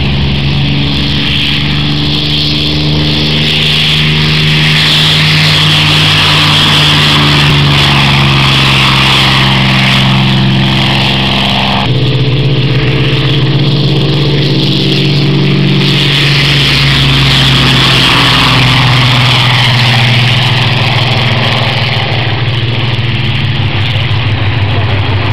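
Piston aircraft engine running steadily at close range. Its pitch changes abruptly about twelve seconds in.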